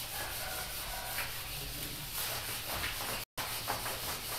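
Duster rubbing across a whiteboard, wiping off marker writing: steady rubbing, cut off for an instant about three seconds in.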